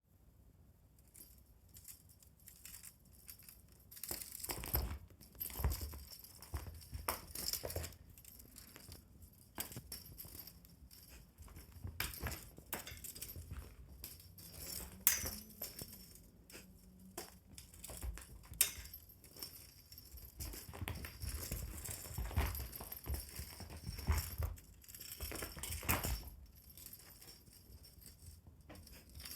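Pets playing with a fishing-rod toy: irregular thumps and scuffles with light clicks and rattles, busiest in two stretches, early on and again past the middle.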